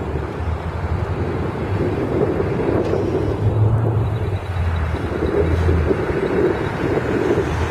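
City transit bus driving past with its engine running steadily over road noise, with wind buffeting the microphone.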